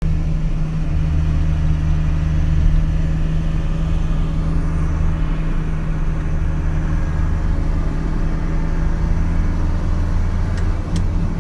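Steady low engine drone and road noise inside a moving car's cabin. Two faint clicks come near the end.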